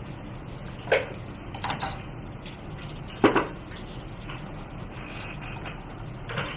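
Steady whirring noise from the repair bench's equipment, with two sharp clacks of tools or parts being set down on the bench, about a second in and a little after three seconds, and fainter clicks between them.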